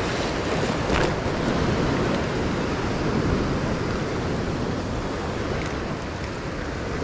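Ocean surf washing over coastal rocks: a steady, continuous rush of water.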